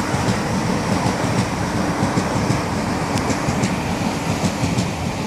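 Passenger train running past close below, a steady rolling noise of its wheels on the rails with a few faint clicks.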